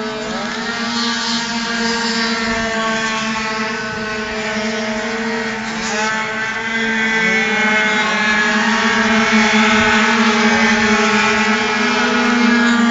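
Several tuned two-stroke racing scooter engines running hard at high revs, their whines overlapping, with pitch rising as riders accelerate about half a second in and again around six seconds in. The sound grows louder near the end as a scooter comes closer.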